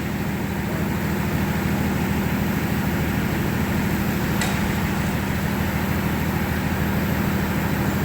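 Steady low machine hum with one sharp click about four seconds in; the hum cuts off suddenly at the end.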